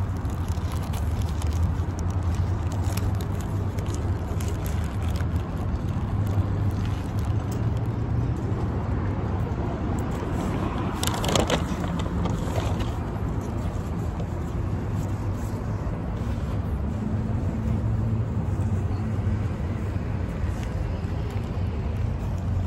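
Steady low rumble of road traffic, with soft clicks and rustles of a burger being eaten out of its paper wrapper, and one louder rustle about eleven seconds in.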